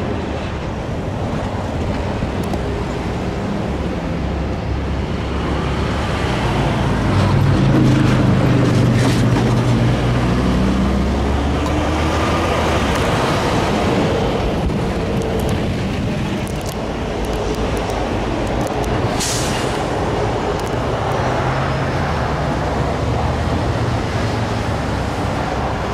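Road traffic moving over the railroad crossing. Seven to thirteen seconds in, a truck's engine rises in pitch and pulls through and away. A short sharp hiss comes about nineteen seconds in.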